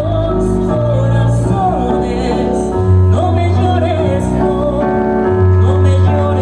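Music: a song with a wavering sung melody over held bass notes that change every second or two.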